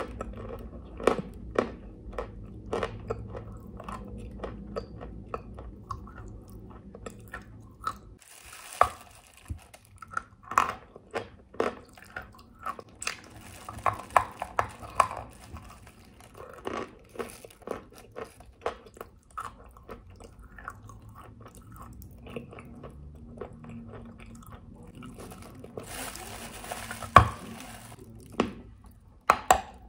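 Chalk being bitten and chewed close to the microphone: irregular crisp crunches, sometimes several a second. There are two longer rustling stretches, about nine seconds in and near the end.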